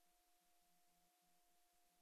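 Near silence: an empty silent-film soundtrack, holding only a very faint steady tone and hiss.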